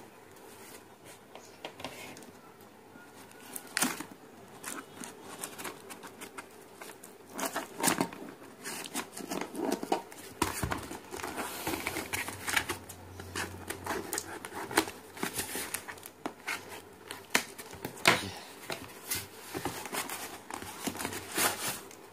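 Taped cardboard mailer being torn open by hand: irregular crinkling, scraping and tearing with scattered sharp clicks and knocks as the wrapper is pulled apart and the box slid out.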